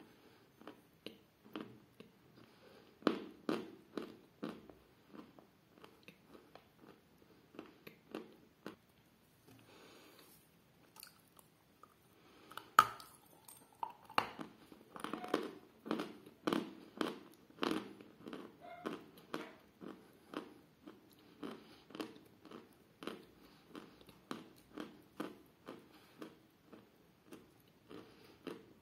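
A person biting and chewing a piece of edible chalk, with crisp crunches at about two a second. The crunches thin out for a few seconds in the middle, then a sharp bite comes about 13 seconds in and the chewing grows denser.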